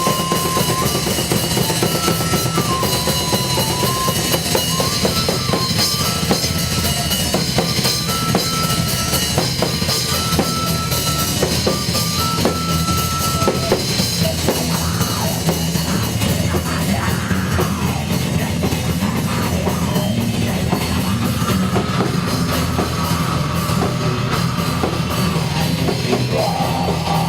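Heavy metal music with fast, dense drum-kit playing and a heavy bass drum. Over the first half a single high melody line steps between a few held notes, then drops out.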